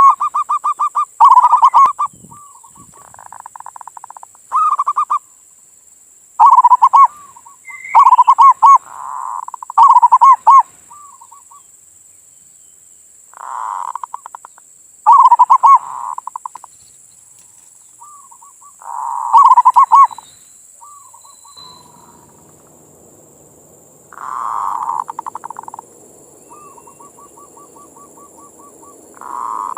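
Zebra dove (perkutut) cooing: repeated phrases of rapid rolling coo notes with short gaps between them, some phrases very loud and others quieter. A faint low hum comes in about three quarters of the way through.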